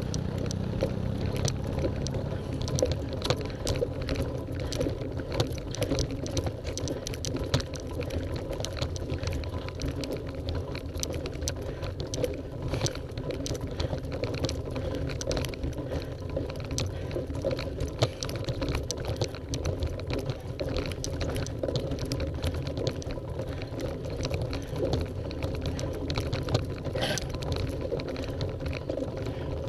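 Bicycle jolting slowly up steep cobblestones: tyres drumming on the stones and the bike rattling in a dense, irregular patter of clicks and knocks over a steady rumble.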